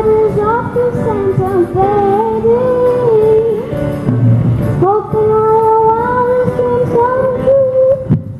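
Children's choir singing in unison over an accompaniment. The melody breaks briefly about four seconds in, then comes back on a long held note that ends just before the end.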